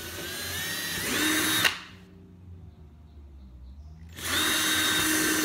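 Cordless electric drill with a 3/16-inch bit drilling two holes through a kayak hull for a padeye. The first run's whine rises as the drill speeds up, then stops suddenly after under two seconds. After a pause, a second steady run starts about four seconds in.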